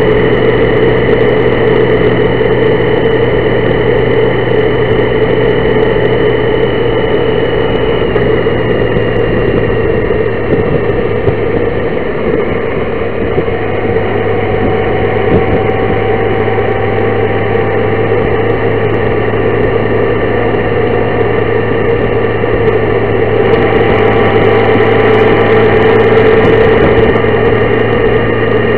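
Honda Gold Wing motorcycle engine running steadily at cruising speed, mixed with wind and road noise; its pitch drifts slightly up and down along the curves.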